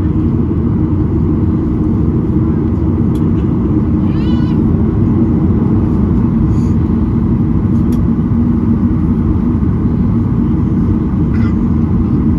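Cabin noise in a Boeing 737-800 taxiing after landing: a loud, steady low rumble of its CFM56 engines at idle and the wheels rolling on the taxiway. A brief high wavering sound comes about four seconds in.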